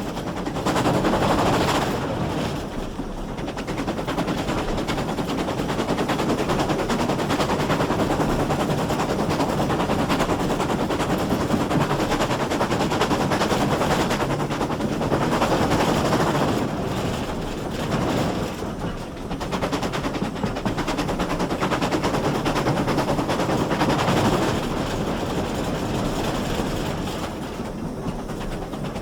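Steam train under way, heard from on board behind GWR pannier tank no. 6412: a continuous, rapid clattering rattle of wheels and running gear that swells and eases every few seconds.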